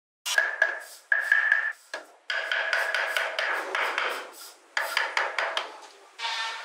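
Small hand carving tool cutting and scraping into the edge of a wooden block in several short strokes with brief gaps between them, a steady high ring running under the scraping. The strokes start suddenly.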